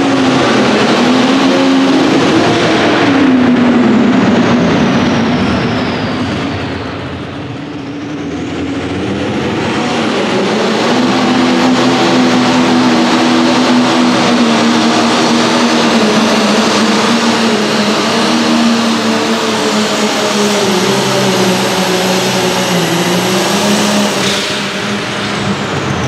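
Turbocharged diesel engine of a light limited super stock pulling tractor running wide open under load on the sled, with a high turbo whistle over it. About three seconds in, the engine note and whistle fall away for a few seconds. They then climb back and hold steady until near the end, where they drop off as the pull finishes.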